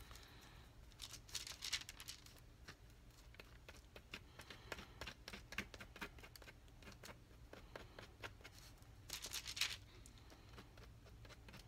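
Faint taps and soft rustles of a foam brush dabbing Mod Podge onto a small wooden letter on wax paper, in quick irregular clicks with two brief rustly scrapes, one about a second in and one near the end.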